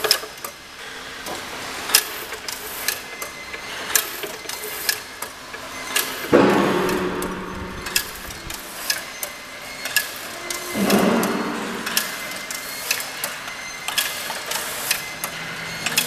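Screen wire mesh weaving machine running forward, its loom mechanism knocking in a steady clacking rhythm. Two louder rushing swells come about 6 and 11 seconds in.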